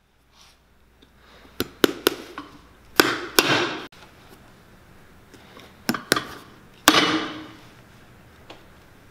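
Cobbler's hammer striking the bottom of a welted leather boot: sharp strikes in small groups, some close together in pairs, several with a short ringing tail.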